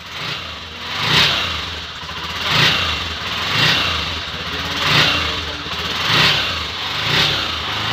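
Honda TMX 125 Alpha's single-cylinder four-stroke engine, just overhauled, revved in six short throttle blips about a second apart and falling back to idle between them. It is running smoothly.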